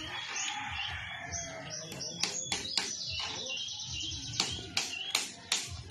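Birds chirping steadily, joined from about two seconds in by about seven sharp knocks in quick groups of two or three.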